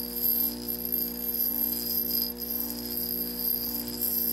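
Bench grinder wheel grinding the steel shank of a nail setter, a steady high-pitched rasp as the shank is ground straight.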